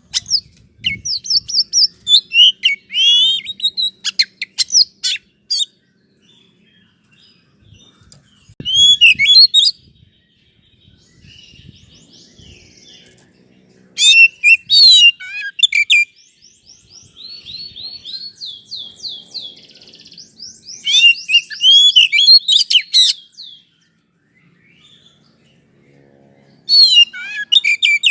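Oriental magpie-robin singing: loud phrases of varied, rapid whistles, chirps and trills, separated by short pauses. This is a lure song used to rouse a magpie-robin into singing.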